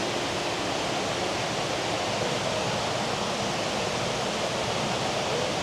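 Steady, even rushing noise like running water or air, with no distinct events.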